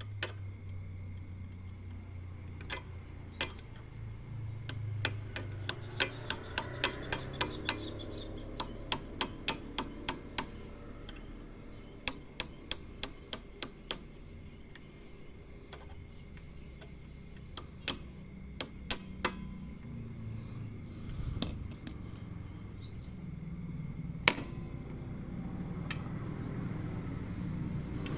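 Sharp metallic taps and clicks, some in quick runs of several a second, as a metal retaining clip is worked back into place over rubber damping pads on the rear of a Honda scooter.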